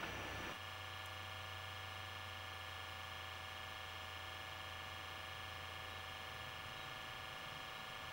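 Steady low hum and hiss with no distinct event, changing abruptly at an audio cut about half a second in.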